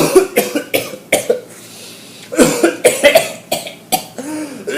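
A person coughing hard in two fits of rapid, repeated hacking coughs with a short pause between them, then a brief strained voiced breath near the end.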